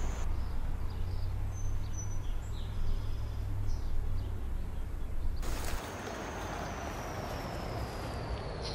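Rural roadside ambience: a low, uneven rumble for the first five or six seconds, then a steady hiss with a high insect tone slowly falling in pitch.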